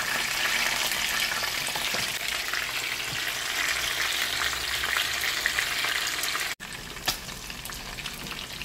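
Whole fish shallow-frying in hot oil in a frying pan: a steady dense sizzle with scattered pops of spitting oil. About two-thirds of the way through it cuts out for an instant and comes back quieter.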